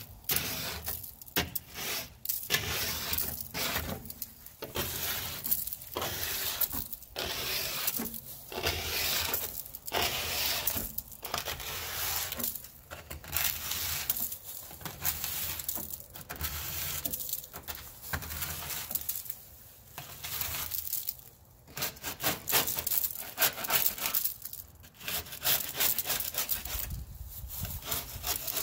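Hand scraper rasping clusters of zebra mussel shells off a metal pontoon hull in repeated strokes, about one a second with short pauses between, the shells crunching as they break loose and fall.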